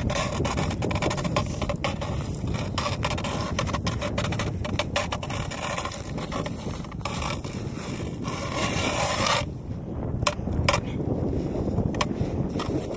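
Hand-cranked ice auger boring into lake ice: its steel blades scrape and crunch through the ice with each turn of the crank, with scattered clicks. The scraping eases off about two-thirds of the way through, then picks up again in short bursts.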